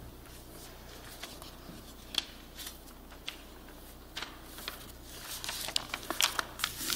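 Paper rustling and small clicks as pages are handled at a pulpit close to a microphone, the rustles coming more often toward the end, over a steady low hum.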